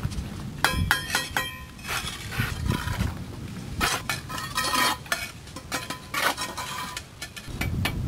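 Steel mason's trowel and brick hammer striking and tapping bricks while a brick well lining is laid: sharp, ringing metallic clinks, a quick cluster about a second in and more around four and six seconds, over a low rumble.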